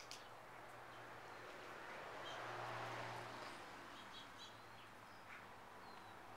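Faint outdoor background: a low steady hum and a soft swell of noise about two to three seconds in, with a few short, high bird chirps scattered through the middle and later part.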